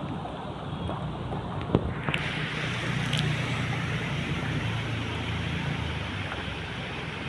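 Steady outdoor noise with a low motor hum that swells about two seconds in and fades near the end, like a vehicle passing, and a single sharp click shortly before it.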